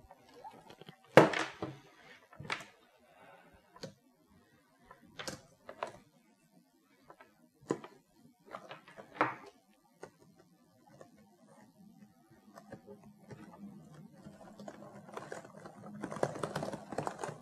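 Scattered knocks and taps as the keyboard and its cable are handled on a wooden desk, the loudest about a second in. Near the end comes a run of rapid typing on the Cougar Vantar's low-profile scissor-switch keys.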